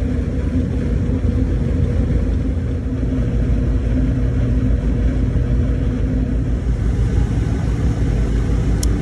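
Carrier air-conditioning unit running steadily after repair, its freshly replaced fan motor and blower giving a continuous low rumble with a steady hum. One brief sharp click near the end.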